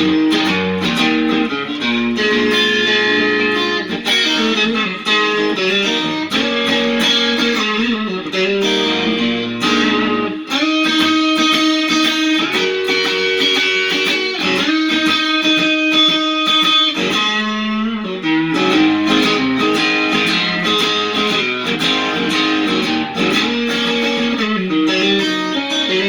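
Electric guitar played through a Lovepedal Supersix overdrive into a Fender Hot Rod Deville amp at a modest gain setting: blues lead licks of picked single notes, with held notes and chords left ringing for several seconds about the middle.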